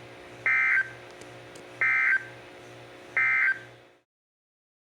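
Three short bursts of screechy weather-radio SAME data tones, the end-of-message code that closes an EAS alert, sent about a second and a half apart over a faint radio hum and hiss. The audio cuts off about a second after the third burst.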